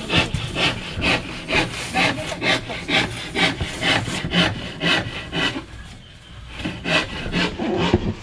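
Hand sawing: quick back-and-forth saw strokes, about two to three a second, with a short pause a little past the middle.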